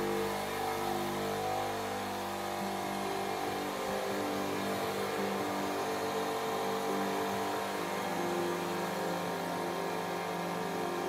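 Milwaukee M12 cordless tire inflator's compressor running under load, pumping up a truck tire from 20 PSI toward 80 PSI; a continuous motor drone whose pitch shifts in small steps.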